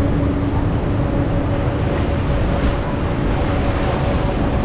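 Steady roar of the Rhine Falls' rushing water with wind on the microphone, and a low steady hum underneath.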